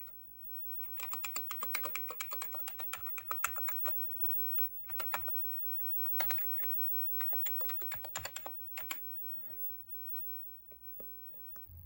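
Typing on a Commodore Amiga keyboard freshly fitted with a new soft flexible membrane: runs of quick keystrokes broken by short pauses, thinning to a few single key presses near the end.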